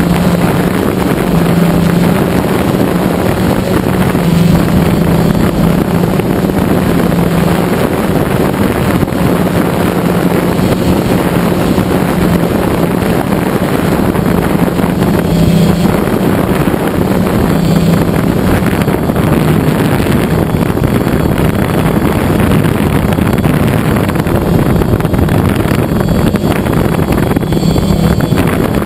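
DJI Phantom quadcopter's electric motors and propellers running in flight, heard from the camera on board: a loud, steady drone with a low hum that swells and eases slightly, mixed with wind noise on the microphone.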